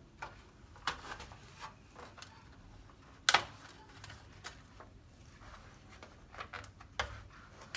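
Small plastic clicks and light handling noises as the LED backlight strip connectors are pressed down and worked loose. One sharp click comes a little over three seconds in.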